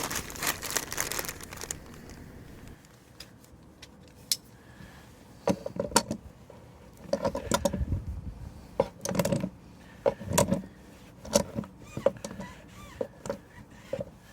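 Hands handling a new hot tub temperature sensor and its small parts: a rustle at the start, then scattered light clicks and a run of short knocks and clatters.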